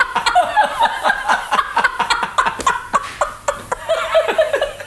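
Hearty laughter: a quick run of short laughs, several a second, with little or no speech.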